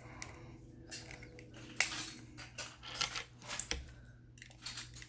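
Plastic Lego bricks clicking and clattering as they are handled and pressed onto the stack, a scattered run of sharp clicks.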